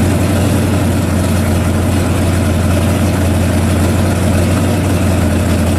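Supercharged engine of a 1941 Willys pro street coupe idling steadily with an even, low rumble.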